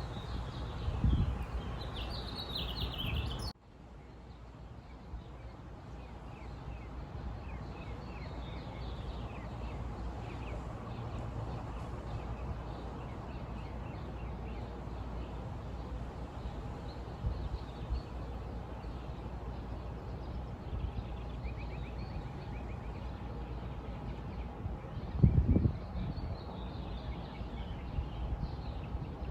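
Small birds chirping over a steady outdoor background hiss. The sound cuts out abruptly a few seconds in and fades back up, and there is a brief low rumble near the end.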